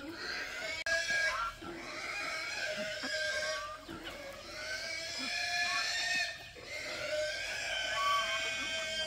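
Several pigs squealing, their drawn-out calls overlapping.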